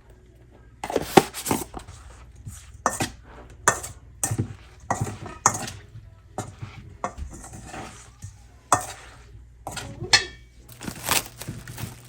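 Irregular clatter and clinks of dishes, utensils and containers being handled, starting about a second in.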